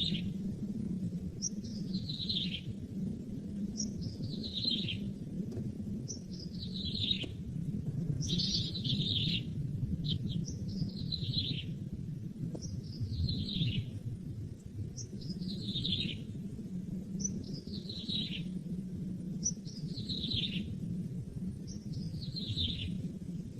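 A bird repeats a single downward-sliding call about every two seconds, over a steady low rumble.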